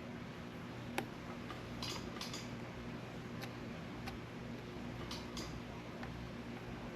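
Scattered light clicks and short rustles from hands handling small tools and materials at a bench, over a faint steady hum. The sharpest click comes about a second in.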